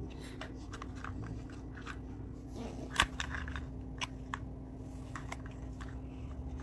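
Small plastic clicks and rattles from a little tackle box of fishing lures being opened and handled, with one sharper click about three seconds in.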